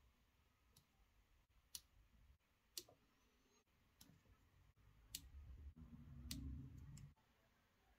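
Small fly-tying scissors snipping the legs of a nymph: faint, sharp clicks about once a second, with a low rumble of handling near the end.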